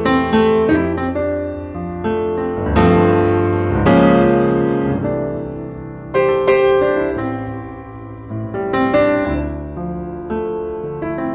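Background piano music: a slow melody of single notes and chords, each struck and left to ring.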